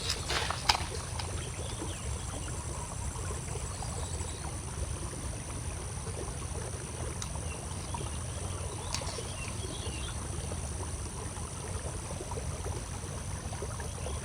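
Outdoor ambience: a steady low rumble under a continuous high-pitched insect drone at two pitches, with a couple of faint clicks near the start.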